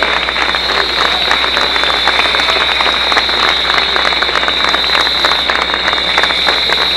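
Large crowd in a legislative chamber clapping, with a hubbub of voices, heard through a live TV broadcast. A steady high-pitched whine runs underneath.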